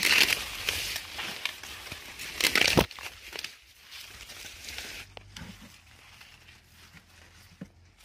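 Dry corn leaves and stalks rustling and crackling as someone pushes through a cornfield, the leaves brushing against the microphone; loudest in the first second and again at about two and a half seconds, then fainter.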